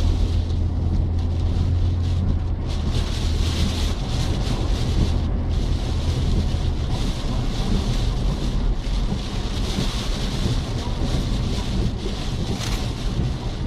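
A car driving, heard from inside the cabin: steady engine and road noise with a hiss over it, and a low hum that fades out about halfway through.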